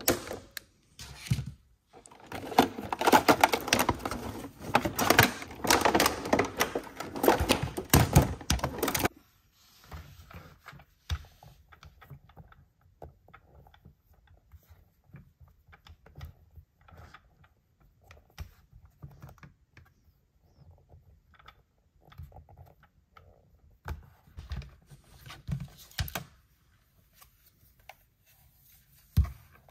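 A few scissor snips through plastic ties, then stiff plastic blister packaging crinkling and crackling loudly for several seconds as the toy is pulled free. After that come quiet clicks, taps and rubbing as hard plastic toy parts are handled, with a few louder clicks near the end.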